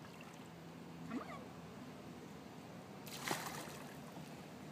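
Pool water splashing and lapping as a toddler paddles and kicks, with one louder splash about three seconds in. A short, high child's vocal sound comes about a second in.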